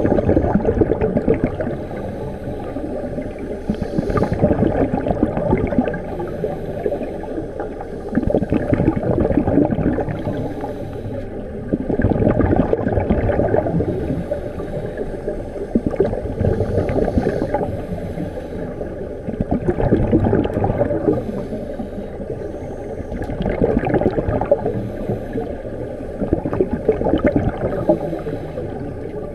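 Scuba breathing heard underwater: loud bursts of exhaled bubbles gurgling from a regulator about every four seconds, with quieter stretches between breaths.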